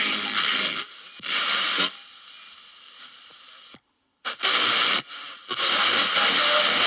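Philips D1600 pocket radio's small speaker giving loud FM static hiss, cutting in and out abruptly several times.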